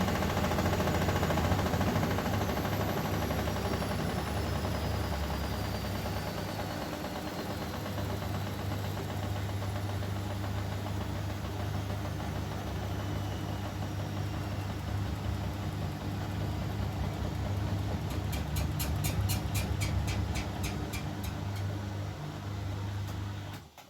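Bosch Maxx washing machine running with a steady hum, its motor whine falling slowly in pitch over the first few seconds. A quick series of ticks comes late on, and then the machine cuts out suddenly at the very end.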